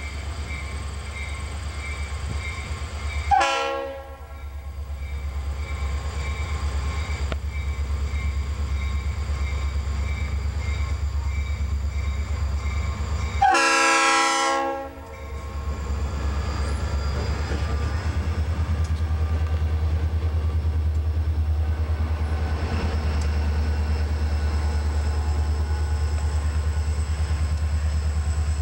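Grade-crossing bell ringing at the start, then a Norfolk Southern diesel locomotive's air horn blows twice: a short blast about three seconds in and a longer one around fourteen seconds. After that the locomotives rumble steadily and louder as they pass the crossing.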